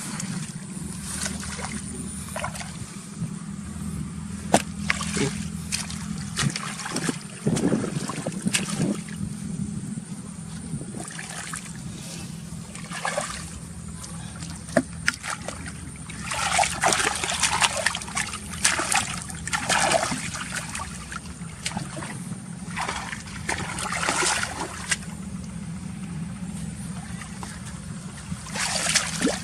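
Water splashing and sloshing in bursts, with a few sharp slaps, over a steady low engine hum.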